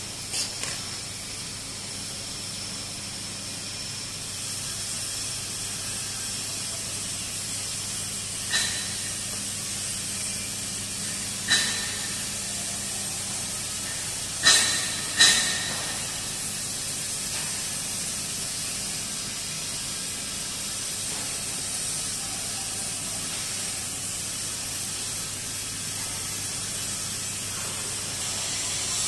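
Arc welding on a steel pipe joint: a steady hiss over a low hum, broken by a few sharp metallic clicks. The loudest two clicks come close together about halfway through.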